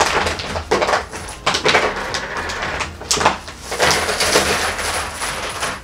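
A knife sawing and scraping through the plastic wall of a 10-litre water jug packed with coins and banknotes, in irregular strokes with crackling plastic, while metal coins spill out through the cut and clink onto a table.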